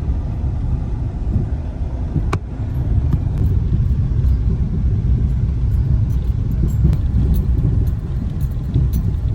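Car road noise heard from inside the cabin: a steady low rumble. A single sharp click comes about two seconds in.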